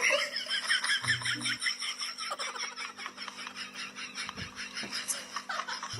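A high-pitched voice in a long rapid run of short squealing notes, about six a second, much like giggling; it breaks off just before the end.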